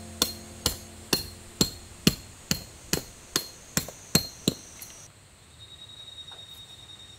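Peg hammer driving a titanium tent peg into the ground, steady strikes about two a second that stop about four and a half seconds in.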